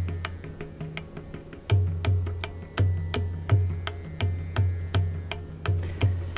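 Mridangam, tuned to C#, playing a solo jati phrase: fast, crisp strokes on the treble head with ringing pitched tones, over deep bass strokes that boom out about three times a second, easing off briefly for a moment about a second in.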